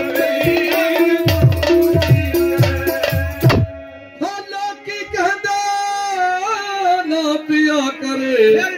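Hand drum and a held instrument note playing in a quick rhythm, cutting off suddenly about three and a half seconds in. A man then sings alone into a microphone, long drawn-out notes sliding slowly down in pitch.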